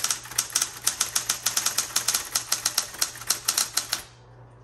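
Smith Corona Coronet Automatic 12 electric typewriter being typed on fast: a quick run of sharp keystroke clacks, several a second, over the steady hum of its running motor. The typing stops about four seconds in.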